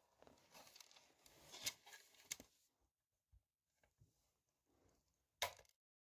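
A foam gasket strip being peeled and torn away from a speaker part: a crackling, ragged rip over the first couple of seconds with a few sharper snaps. A few faint ticks follow, then one sharp knock near the end.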